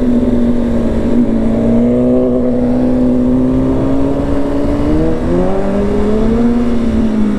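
Sport motorcycle engines at riding speed, the BMW S1000RR's inline-four among them, running steadily. About five seconds in, an engine revs up and its pitch rises.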